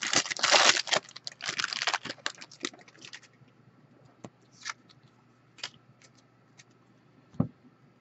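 Clear plastic wrapper of a trading-card pack crinkling and tearing as it is pulled off the cards, dense for about the first three seconds. Then scattered light clicks of the cards being handled, and a single soft thump near the end as the card stack is set down on the table.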